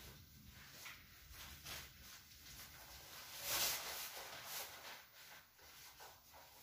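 Soft rustling of a black cloth rod bag being folded and rolled up in the hands, with one louder rustle about three and a half seconds in.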